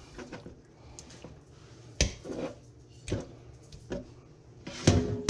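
A kitchen knife knocks on a plastic cutting board a few times, about a second apart, as raw fish fillets are cut. Near the end comes a louder clatter with a short ringing tone as the cut pieces are scraped off the board into a stainless steel bowl.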